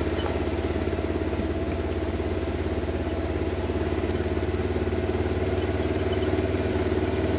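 A vehicle engine running steadily under way at an even, moderate pace, with a fast, even pulsing hum.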